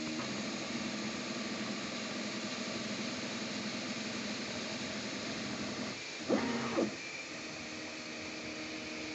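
Anet A6 3D printer running mid-print: its stepper motors whine in steady tones over the hiss of its fans. About six seconds in, a short, louder whine rises and falls in pitch.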